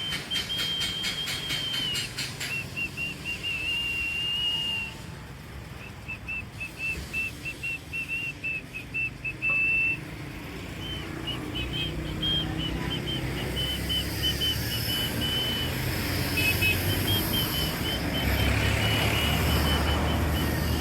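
A high-pitched machine whine, held steady in stretches and broken into quick short pulses in others, its pitch stepping slightly between runs, over a low rumble.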